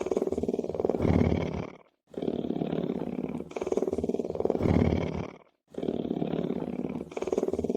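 A lion's low rumbling purr, a rapid pulsing throb in stretches of about three and a half seconds that each swell toward the end. The stretches are broken twice by a brief silence, the same stretch seemingly repeating.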